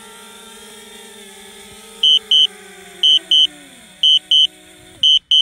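DJI Spark quadcopter's propellers whirring, then falling in pitch as the motors spin down and stopping about five seconds in, as the drone lands. Loud paired electronic warning beeps sound about once a second from about two seconds in.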